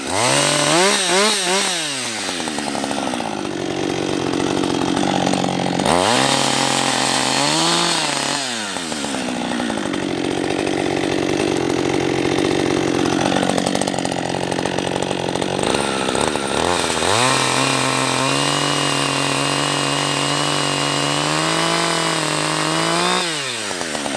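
Two-stroke chainsaw cutting into a log stump. The engine revs up and down several times, holds steady at speed through long cuts, and falls back near the end.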